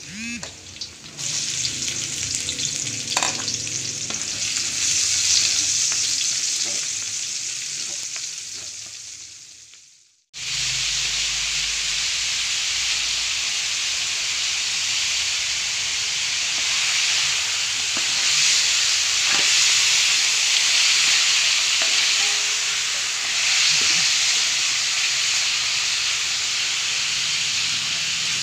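Chopped garlic frying in a wide metal pan, the sizzle swelling and then fading away to nothing about ten seconds in. Then raw chicken pieces searing with a steady sizzle, with a few short knocks of the spatula against the pan.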